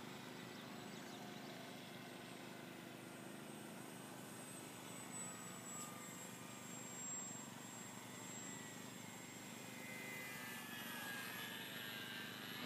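Parkzone T-28 Trojan RC plane's electric motor and propeller whining faintly in flight. The whine grows louder near the end, with its pitch falling.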